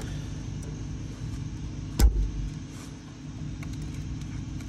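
A 3/8-inch ratchet and socket tightening a new oxygen sensor into the exhaust pipe: one sharp metallic knock about two seconds in and a few faint ratchet clicks near the end, over a steady low hum.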